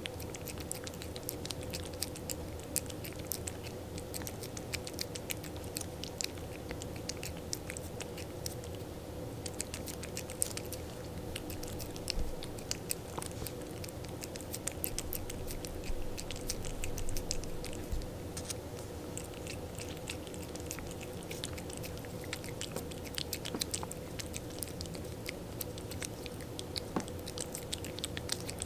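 A cat licking and chewing at a squeeze tube of Inaba lickable cat treat, its teeth biting on the plastic pouch. It makes a constant run of rapid, irregular small wet clicks and smacks.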